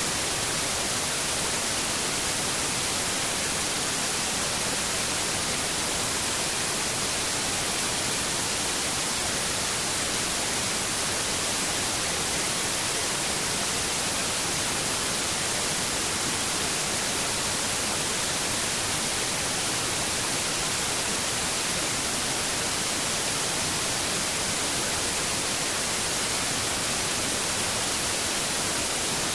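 Steady hiss of static-like white noise, even and unchanging, with no other sound standing out.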